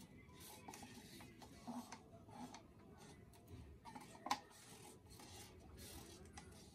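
Faint rubbing and small clicks of gloved hands handling a thin plastic cup as the last of the paint is poured out, with one sharper click about four seconds in.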